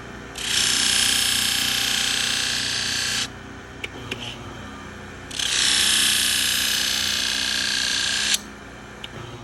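Pocket-knife edge ground against the spinning fine-grit disc (about 1200 grit) of a Hira-To flat hone, as two steady hissing passes of about three seconds each. The hone's motor hums steadily under and between them.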